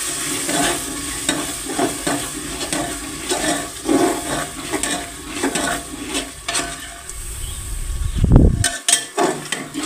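Spatula scraping and stirring thick masala paste frying down (bhuna) in an aluminium pressure cooker, in quick repeated strokes over a steady sizzle. A heavy low thud near the end.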